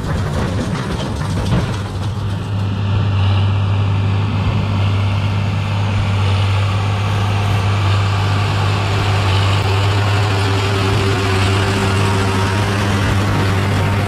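Agri Master 1204 tractor's six-cylinder diesel engine running steadily under load while pulling a New Holland BB960 large square baler, with the baler's machinery running along. A constant low drone, with a steady higher tone joining about ten seconds in.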